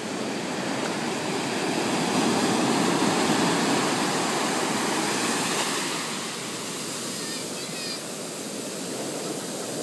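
Ocean surf breaking on a sandy beach and washing up the shore: a rushing wash that swells a second or two in, peaks, then eases off as the water spreads and draws back.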